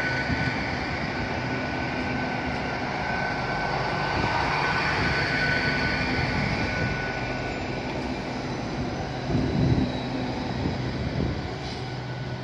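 Great Western Railway Hitachi bi-mode Intercity Express Train moving slowly along the platform on its underfloor diesel engines: a steady engine hum and running noise with a thin high whine. It grows briefly louder about three-quarters of the way through.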